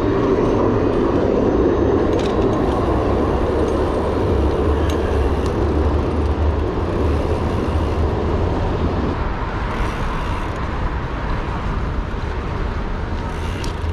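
Steady city road-traffic noise heard while riding a bicycle, with a constant low rumble underneath. It eases off a little after about nine seconds.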